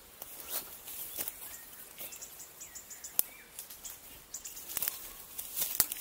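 Footsteps and rustling through dry undergrowth, with scattered small clicks and two sharp twig-like cracks, about three seconds in and near the end.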